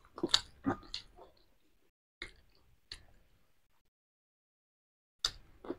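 Soft wet clicks and smacks of people chewing boiled eggs and herbs: a cluster in the first second, a couple more over the next two seconds, and more near the end.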